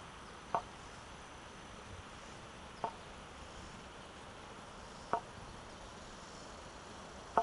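Wooden walking stick tapping on an asphalt path while walking: four short, sharp taps evenly spaced about two seconds apart, the last the loudest.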